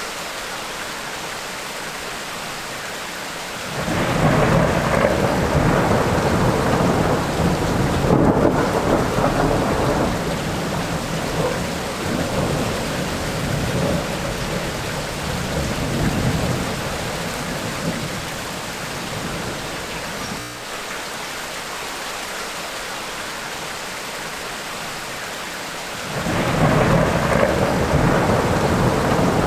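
Tropical rainstorm: steady heavy rain, with a long roll of thunder rumbling in about four seconds in and dying away over some fifteen seconds, and another roll starting near the end.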